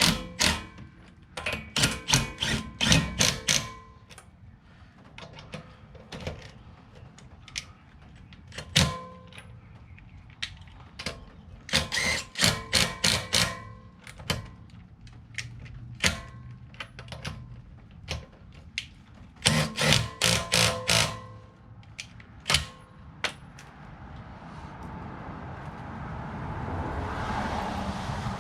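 Metal clanking: quick runs of sharp clicks and knocks with a ringing tone, in three main bursts and single knocks between. Near the end a rushing noise swells, like a vehicle passing.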